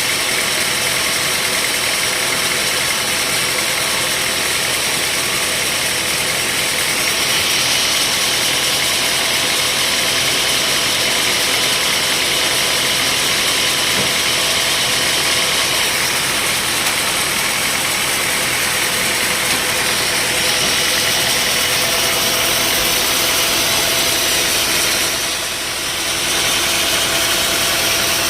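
Engine-driven sawmill machinery running steadily, a loud even mechanical noise with a steady hum; the level dips briefly near the end.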